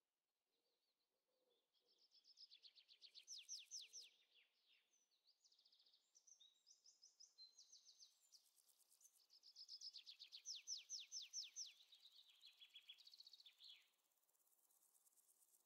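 Faint songbird song: a small bird singing phrases of rapid trills made of quick down-slurred notes, mixed with chirps, the two longest trills lasting a few seconds each.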